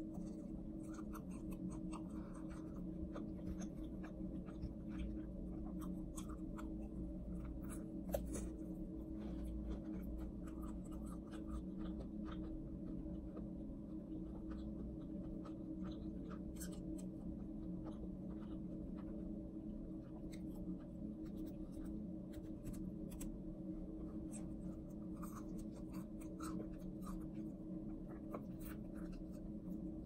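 Close-miked chewing of crispy fried chicken: scattered soft crunches and mouth clicks, with one sharper click about eight seconds in, over a steady low hum.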